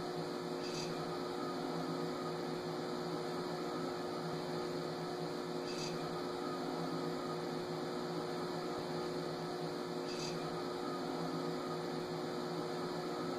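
A 1998 Quadra-Fire Classic Bay 1200 pellet stove running: a steady hum from its fan motors, with three faint brief ticks about five seconds apart.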